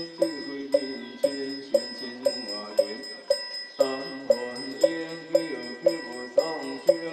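Ritual chanting of a Taoist scripture in unison, sung to a melody and kept in time by a wooden fish (muyu) knocked steadily about twice a second.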